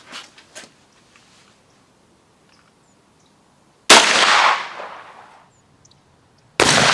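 Two shotgun shots from an over-and-under shotgun, about three seconds apart, each a sharp blast with a tail that dies away over about a second. They are test shots at a patterning board, fired to check where the shot lands after the stock's cast was adjusted.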